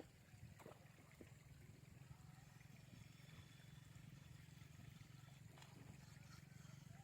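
Near silence: faint outdoor background with a low steady hum and a few faint ticks near the start.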